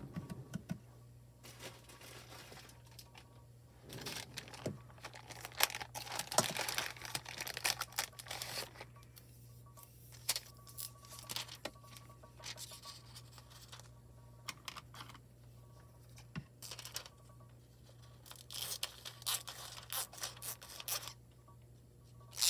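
Crinkling, rustling and tearing of a thin sheet of transfer foil being handled, with scattered light taps, the busiest stretch a few seconds in.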